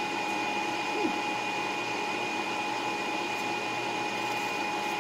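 A steady machine hum, like a small appliance motor or fan running, with a faint high steady whine over it.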